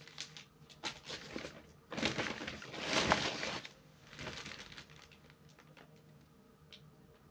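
Crinkling and rustling of plastic packaging and a paper shopping bag as a wrapped pack of tissue rolls is pulled out and handled. It comes in irregular bursts, loudest about three seconds in, and dies down after about five seconds.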